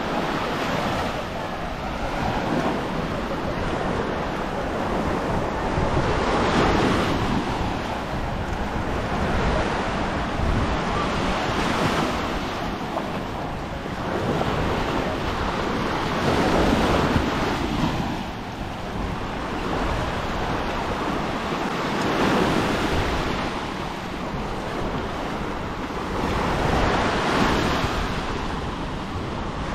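Small sea waves washing up onto a sandy beach, swelling and fading about every five seconds, with wind rumbling on the microphone.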